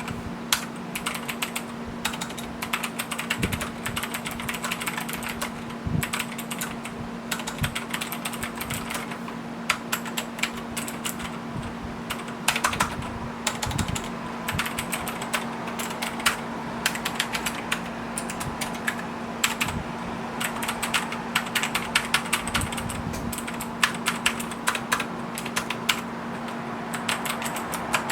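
Continuous, irregular typing on a Xenics STORMX TITAN MARK VI mechanical keyboard with clicky blue switches, each keystroke a sharp click.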